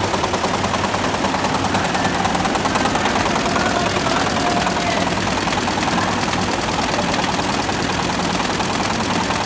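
Computerised multi-head embroidery machines stitching: a steady, rapid mechanical clatter of the needles with no letup.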